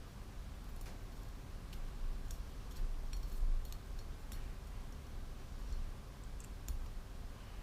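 Scattered light metallic ticks and clicks from an Allen key working the small Allen head screws of the KTM 250SX powervalve keeper plates, irregular and bunched in the first half, with two more about six and a half seconds in, over a low steady hum.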